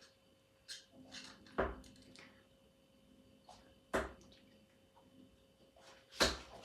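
Darts striking a dartboard: three sharp thuds about two seconds apart, the last the loudest.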